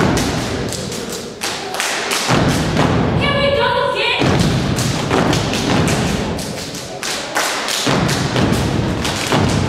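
Step team stepping: feet stomping on a wooden stage with hand claps and body slaps in a fast, driving rhythm. A short voice calls out a little after three seconds in.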